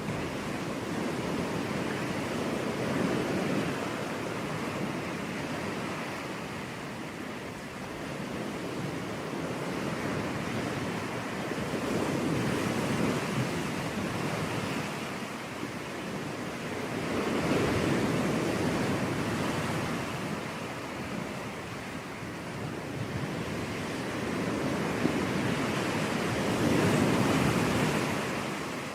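Sea waves breaking and washing up a beach: a continuous rush of surf that swells and falls back about four times.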